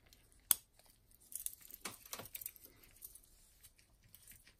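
A single sharp click from a steel watch bracelet's folding clasp snapping shut, about half a second in. Then rustling of gloved hands with light clinks of the jubilee bracelet's links as the watch is handled.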